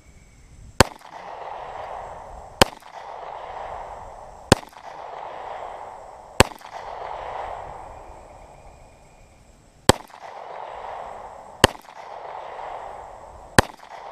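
Walther P22 .22 LR pistol firing seven single shots, spaced about two seconds apart with a longer pause after the fourth, each shot followed by a lingering echo. Every round goes off, so the pistol is firing reliably with its replaced firing pin.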